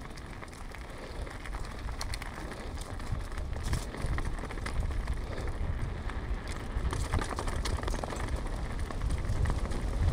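Mountain bike rolling downhill: a steady rush of tyre noise, with the chain and frame rattling in scattered clicks and a low rumble of wind on the microphone.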